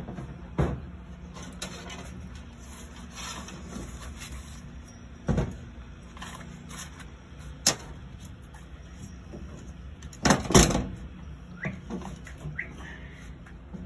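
Scattered metal knocks and clanks from work inside a steel boat's seat well, a few single bangs and a loud pair about ten seconds in, over a steady low hum.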